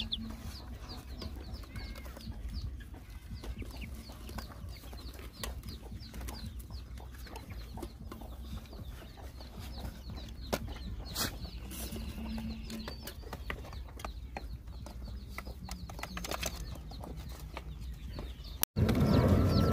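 Puppies and a dog eating from a metal tray, with many small clicks and chewing sounds, while chickens cluck now and then. Near the end it cuts suddenly to much louder noise.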